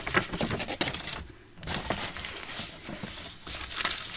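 Brown paper bag and sheets of paper being handled and shuffled, crinkling and rustling in bursts, with a short lull a little over a second in.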